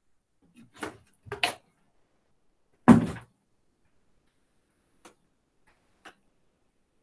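A few light knocks, then a louder thud about three seconds in, followed by two faint clicks.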